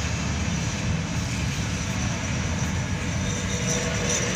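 Steady road noise and engine hum from inside a moving car's cabin, with no sudden events.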